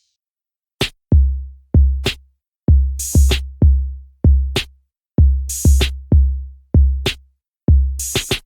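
Electronic background music: a drum-machine beat of deep bass-drum kicks with sharp snare hits, starting after a short gap.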